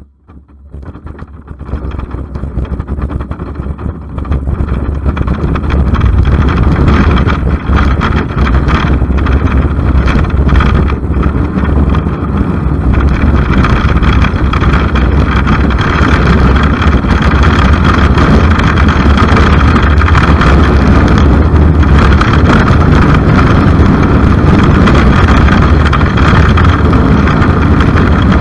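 Bobsleigh runners rumbling and scraping along the ice track, heard from a camera mounted on the sled, with a rush of air over the microphone. The noise rises over the first few seconds, then holds loud and steady.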